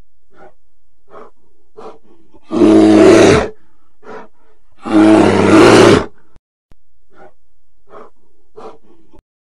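Two loud, deep bear roars, each about a second long, the first about two and a half seconds in and the second about five seconds in. Short faint grunts or steps fall between them.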